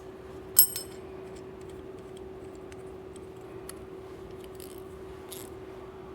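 Small metal carburetor parts being handled: one sharp, ringing metallic clink about half a second in, then light clicks and taps. A steady hum runs underneath.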